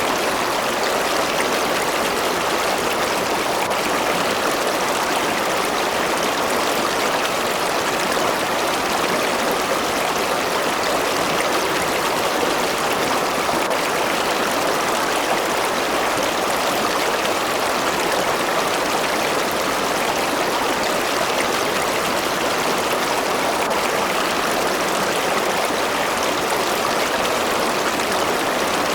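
A river or stream running over rocks: a steady rushing of water that holds even throughout.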